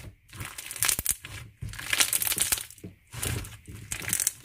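A large white slime packed with plastic pearl beads being squeezed and kneaded by hand, giving a crunchy crackling in three bouts of about a second each.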